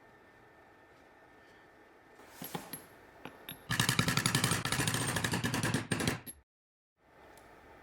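A few separate clicks, then a rapid mechanical rattle of fast repeated impacts lasting about two and a half seconds, cut off abruptly.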